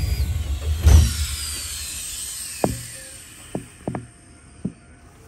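Commuter-train passenger doors sliding shut with a loud thump about a second in, after which the background rumble drops away and the car goes quieter. A falling whine follows, then a handful of sharp clicks.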